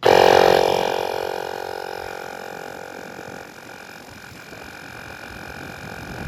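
Air compressor motor kicking on suddenly and running steadily with an even hum, loudest right at the start and easing off over the next few seconds.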